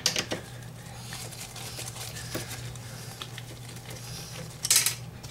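Ratchet and socket working the nut off a toilet closet bolt: faint, irregular small clicks and scraping over a low steady hum, with one brief louder burst of noise near the end.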